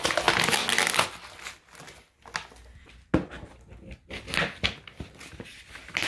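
Brown kraft paper wrapping torn and crumpled off a cardboard box. There is a dense rustling rip through the first second or so, then scattered crinkles and short tears, the sharpest about three seconds in.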